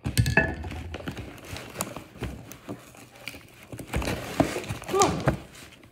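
Hands ripping and pulling at a taped cardboard shipping box, with irregular knocks and scrapes as the box shifts.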